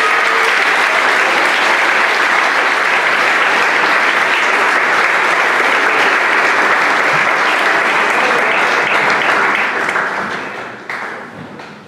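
Audience applauding, steady for about ten seconds, then dying away near the end.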